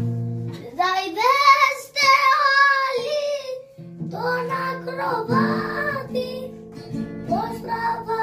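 A song: a held chord, then a high voice singing long, wavering phrases over plucked-string accompaniment.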